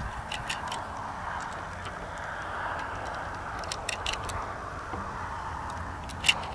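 Sharp metallic clicks of brass 7.62x25mm Tokarev cartridges being pressed one by one into a CZ 52 pistol's single-stack magazine, coming in small clusters, with the loudest click near the end. A steady background hiss runs underneath.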